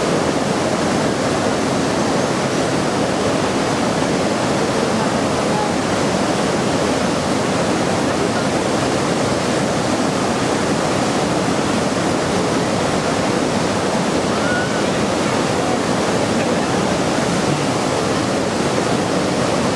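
Lower Bassi Falls pouring steadily: a loud, even rush of falling water that does not change.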